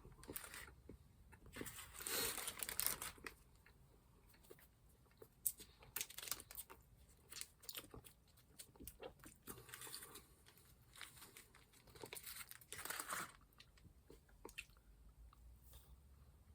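A person chewing a soft iced cupcake close to the microphone: faint wet mouth sounds in scattered bursts, loudest about two seconds in and again near the end.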